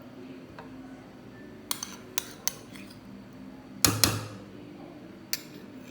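A spoon clinking and knocking against a bowl, about six sharp hits, the loudest pair about four seconds in with a brief ring, as mayonnaise is spooned into chicken sandwich filling.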